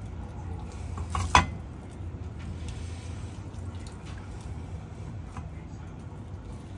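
Cooked chicken being handled on a wooden cutting board as bones are pulled from the meat, with small faint clicks and one sharp knock about a second and a half in, over a steady low hum.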